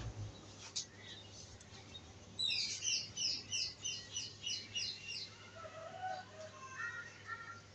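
A songbird chirping: a run of about nine quick, high chirps at about three a second, followed by a few softer, lower notes.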